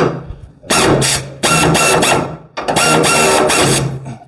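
A power tool running in three bursts of about a second each, its motor giving a steady whine.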